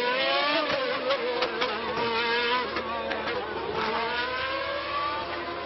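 Formula One car engine at high revs. Its pitch climbs briefly, then drops with a run of sharp cracks about a second in, and rises again as the car accelerates near the end.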